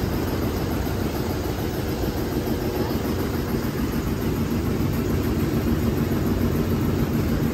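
Steady low drone of an engine idling, even in level with no changes in pitch.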